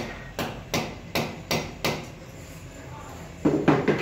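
A run of sharp knocks, about two and a half a second, fading out about two seconds in, then a louder cluster of three or four knocks near the end.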